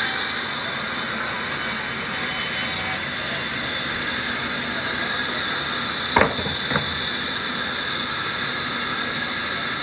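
Large band saw ripping a thick wooden slab lengthwise, a steady hissing cut. Two sharp knocks come about six seconds in, the second softer.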